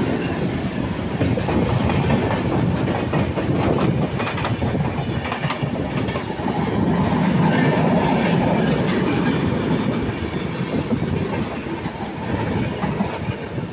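Avadh Express coaches passing at speed on the next track, heard from the open side of a moving train: a steady, loud rush of wheels and coaches with rapid clicking of wheels over rail joints.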